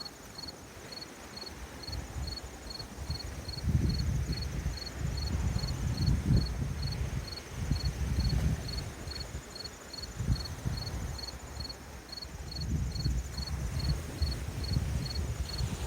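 Crickets chirping in a steady, even rhythm, about two to three chirps a second, with a fainter high insect trill above. Under them a low rumble swells and fades, loudest about four to seven seconds in and again in the last few seconds.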